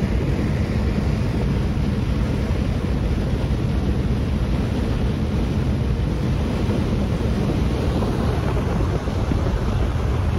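Steady road and wind noise of a car driving at highway speed, with a low engine drone.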